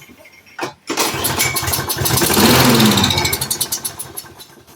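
Troy-Bilt push mower's small single-cylinder engine being pull-started: it catches about a second in, revs up, runs briefly, then dies away near the end. It will not stay running on its own.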